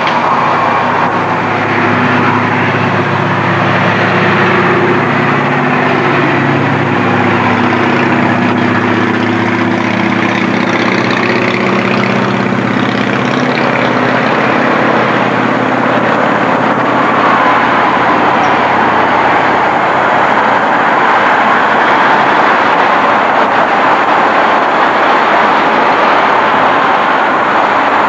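A heavy engine running steadily, its low hum fading out about halfway through, over a steady rushing noise.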